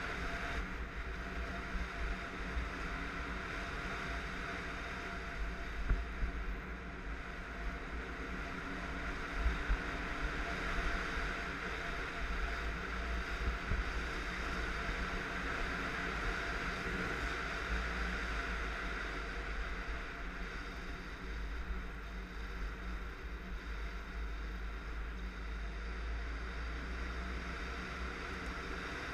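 Kawasaki KLR650 single-cylinder four-stroke engine running steadily under way on a gravel road, with wind rushing over the microphone. A few short knocks stand out, a couple of them clustered near the middle.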